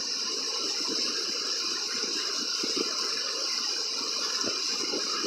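Waterfall on a rocky river rushing steadily over the stones.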